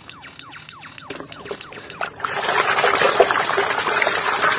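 Water in a plastic basin dripping and trickling, then about two seconds in loud continuous splashing and sloshing as a plastic toy bus is scrubbed and swished back and forth under the water by hand.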